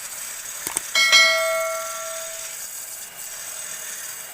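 A piece of metal struck once, ringing with a clear metallic tone that fades over about a second and a half. Two light clicks come just before it, over a steady workshop hiss.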